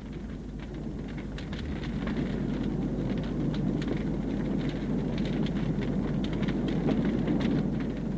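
Large fire burning: a steady low rumble with dense crackling and popping, slowly growing louder.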